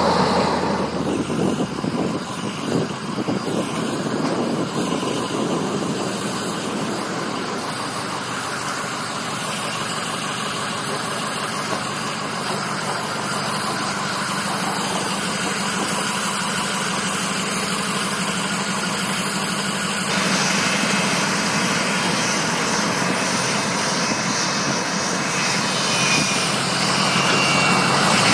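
A steady mechanical drone with a low hum, engine-like, that carries on without a break; its tone shifts slightly about two-thirds of the way through.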